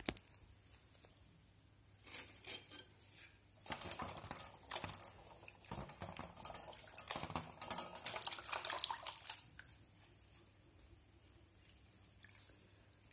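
Hands swishing and squeezing curry leaves and coriander in a metal pot of water: splashing and sloshing in irregular bursts over several seconds.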